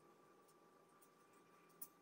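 Near silence: faint room tone with a steady high hum, and one soft click near the end.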